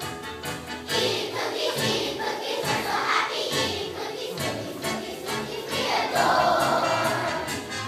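A large children's choir singing together over musical accompaniment with a steady beat.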